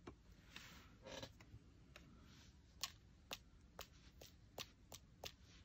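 Near silence, then from about halfway in a run of faint, sharp taps, about two a second: a paintbrush being tapped to flick watered-down paint spatters onto a journal page.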